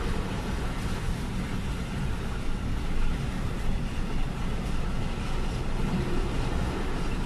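Container flat wagons of an intermodal freight train rolling past a level crossing: a steady, continuous rolling noise of steel wheels on rail, heard from inside a car.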